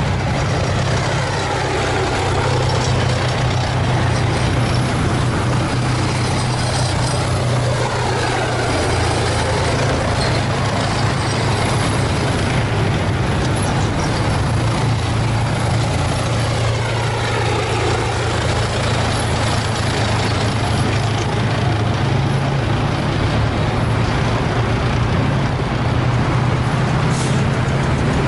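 Heavy military vehicles, tracked armour and army trucks, driving past in a column. A steady low engine drone runs under a whine that rises and falls several times as vehicles go by.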